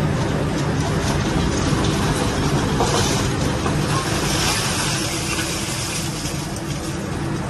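Liebherr demolition excavator's diesel engine running steadily, heard from inside the cab, with noise of the machine working on rubble; the noise grows louder and higher-pitched about four to five seconds in.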